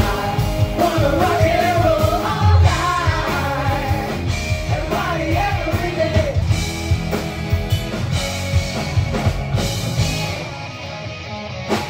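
A rock-style song with a singing voice over a steady drum beat.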